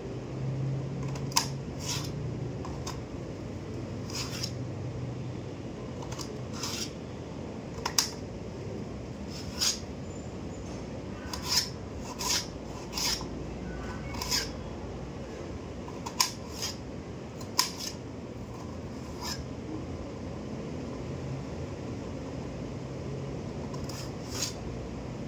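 Small knife slicing red onion on a steel plate: irregular sharp clicks every second or so as the blade strikes the metal plate.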